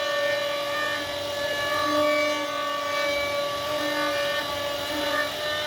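CNC router spindle running with a steady whine made of several held tones, some dropping in and out, as the bit carves wood.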